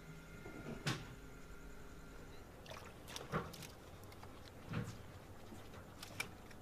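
Water splashing and dripping on a fishing boat, with a few short, sharp knocks spaced a second or more apart over a faint steady hum.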